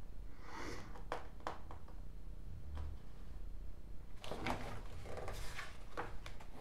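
Magazine pages being turned and handled: soft paper rustles with a few light taps and ticks.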